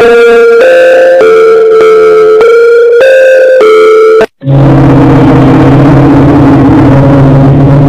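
Very loud, distorted meme audio. For about four seconds a simple melody of held notes plays, then it cuts off abruptly and gives way to a steady, harsh low droning tone with a noisy hiss over it.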